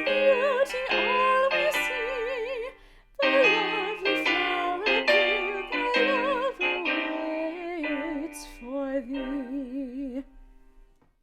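Trained, operatic-style voice singing the final phrase of a song with wide vibrato over piano accompaniment, fading out to silence about ten seconds in.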